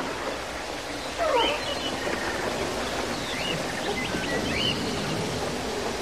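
Animal calls and bird chirps over a steady background hiss, with a louder gliding call about a second in.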